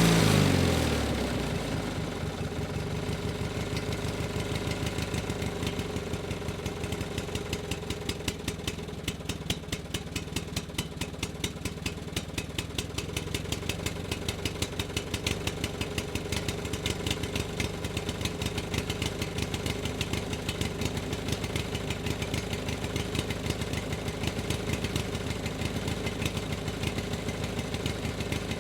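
An engine's revs drop quickly at the start, and it then settles into a steady idle with a regular pulsing beat.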